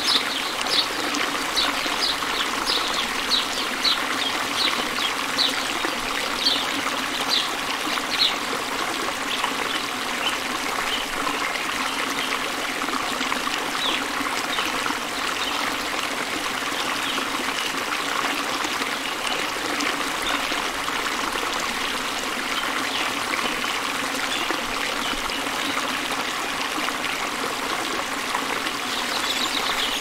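Steady rush of a trickling stream, with a series of short high chirps over the first several seconds and again near the end.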